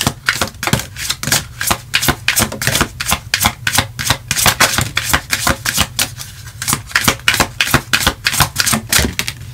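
Tarot deck being shuffled by hand: rapid, irregular snapping and slapping of the cards, several crisp clicks a second, stopping near the end.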